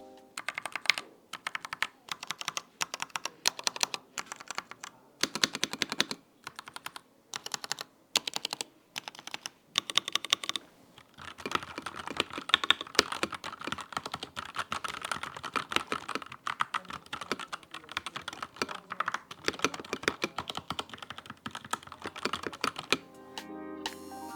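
Keystrokes on a FiiO KB3 mechanical keyboard: rapid clacking in short bursts with brief pauses, turning into a denser, unbroken run of fast typing about halfway through.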